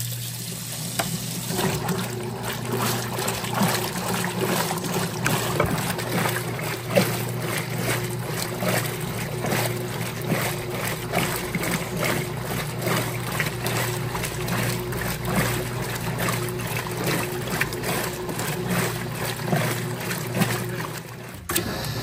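Electrolux Top8 top-loading washing machine running its wash agitation on low water level: a steady motor hum under a continuous run of irregular swishes as the water sloshes in the tub.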